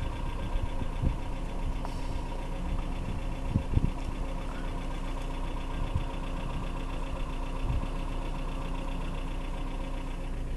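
Car engine running with a steady hum, with a couple of short low thumps about three and a half seconds in.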